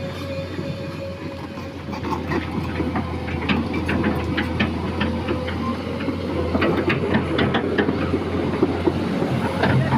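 Liugong crawler excavator travelling: its engine runs steadily with a constant whine, while the steel tracks clank and rattle irregularly, getting louder after about two seconds.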